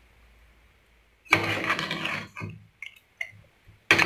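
A steel ladle stirring and scraping thick chicken and vegetable curry in a metal pot: quiet at first, then a noisy stretch of stirring about a second in, a few short scrapes, and stirring again near the end.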